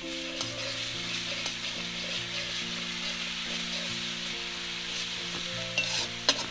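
Sliced onions with chilli and garlic pastes sizzling in hot oil in a metal wok while a metal spatula stirs them, with a few sharp clicks of the spatula against the pan near the end. Faint background music runs underneath.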